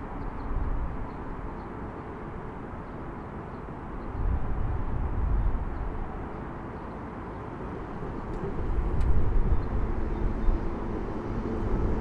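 Road traffic crossing Gwangjin Bridge: a steady low rumble that swells twice as vehicles pass, about four seconds in and again near the end.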